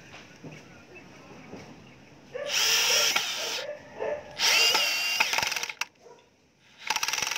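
Bosch GSB 120-LI 12 V cordless drill/driver driving a screw into wood at torque setting 10, in three bursts of the motor. The last burst has a rapid, even clicking as the torque clutch slips, leaving the screw not quite flush.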